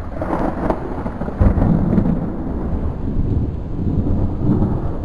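Thunder from an approaching thunderstorm rumbling long and low, swelling louder about a second and a half in.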